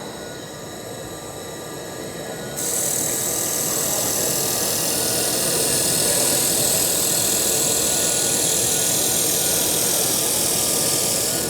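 IPG LightWELD 1500 XR laser welder running a wire-fed weld along a stainless steel seam: a loud, steady hiss starts suddenly about two and a half seconds in, over a steady hum of equipment.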